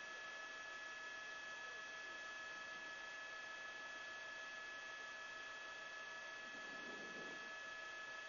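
Steady electronic hum of several fixed tones over a constant hiss, on the open audio line of a news helicopter's live feed with no one talking. A faint murmur comes through briefly near the end.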